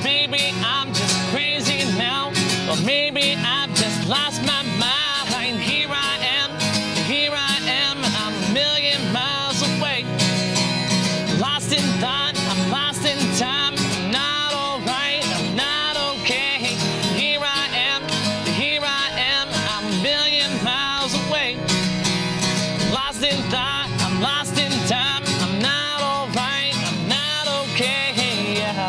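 A man singing in a smooth yet gritty voice over a strummed Epiphone acoustic guitar: a live country-folk song performance.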